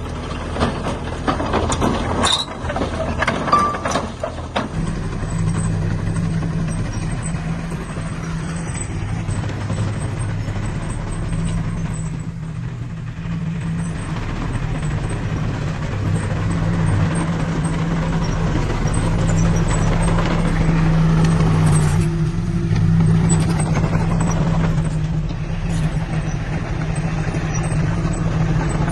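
Heavy earthmoving machine's diesel engine running steadily under load. It is preceded by about four seconds of irregular clanking knocks.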